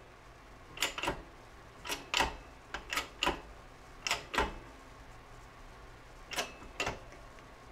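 Sharp clicks and clacks from a 12-ton shop press being worked as it slowly presses a new bearing into a snowmobile idler wheel. They come mostly in pairs about a second apart, pause after about four and a half seconds, then two more follow.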